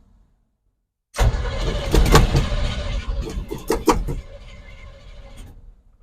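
Fire-damaged 1972 Chevrolet Cheyenne Super pickup's engine cranking and catching roughly, starting after about a second of silence and falling much quieter about four seconds in. The engine is hard to start and barely runs, later traced to vacuum leaks from fire-burnt vacuum lines.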